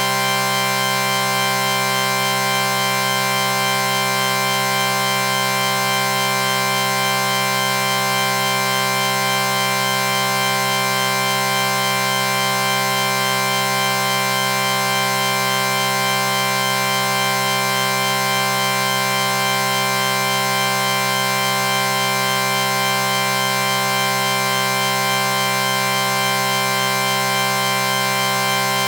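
A chord sound effect held steady as one continuous drone: several tones sounding together, unchanging in pitch and loudness, with a faint flutter in the upper notes.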